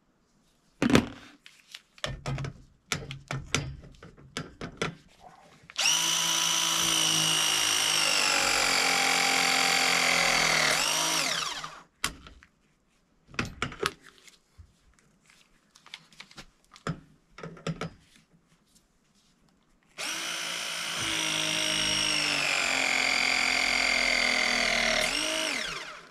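ProPress press tool crimping copper pipe fittings twice: each press is a steady motor run of about five seconds whose pitch sinks slowly, then drops sharply at the end. Clicks and knocks of handling come before each press.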